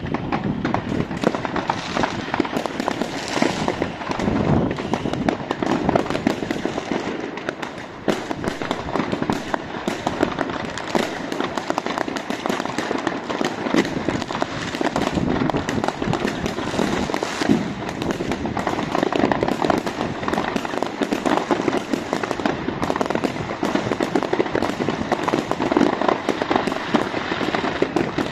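Many New Year's Eve fireworks and firecrackers going off at once in a continuous barrage: a dense, unbroken crackle of overlapping bangs and pops with no pause.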